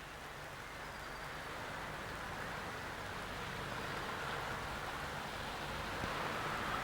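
Steady hiss-like noise with no distinct events, slowly getting louder: the noise floor of an old videotape recording.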